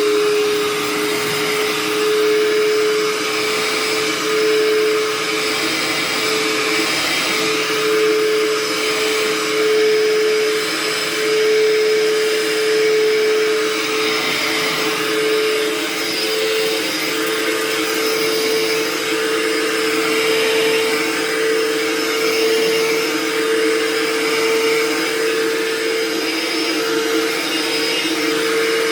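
Hoover Turbopower 2 vacuum cleaner running steadily on its freshly repaired and serviced motor, a continuous rushing air noise over a steady motor hum whose pitch creeps slightly upward.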